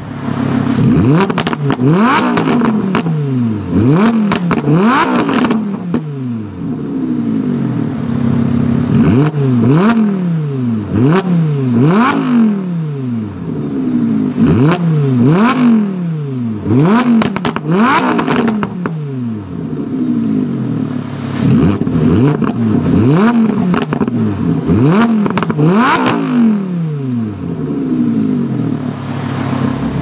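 Lamborghini Huracán LP610-4's 5.2-litre V10 revved repeatedly while parked in Sport mode: quick throttle blips, about one a second, each rising sharply in pitch and falling back, in short runs with brief pauses between them.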